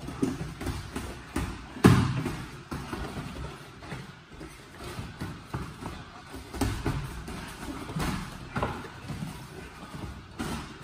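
Boxing sparring: irregular thuds of gloved punches landing and feet shuffling on the mat, the loudest thud about two seconds in.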